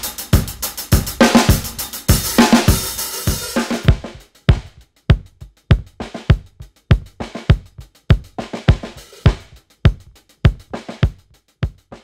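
A rock drum kit playing a marching beat of kick, snare and cymbals in a roomy, room-mic-heavy mix. About four seconds in it drops to the kick drum alone through its close mic: a clear acrylic Ludwig Vistalite bass drum, damped with a blanket inside, giving a run of short, dull low thumps with only faint spill from the rest of the kit.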